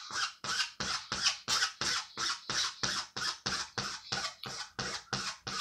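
Pencil scratching over the drawing sheet in quick, even strokes, about five a second, as long strands of hair are sketched in.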